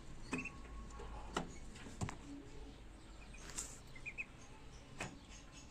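Pigeon squabs peeping in short high chirps while being fed. Several sharp knocks and a brief rustle sound among the chirps.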